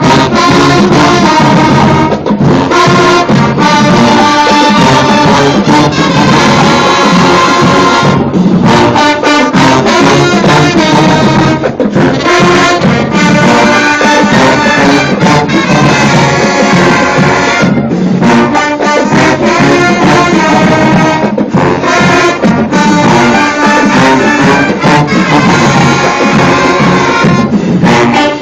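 University marching band playing a loud, up-tempo tune: brass section over a driving drum beat.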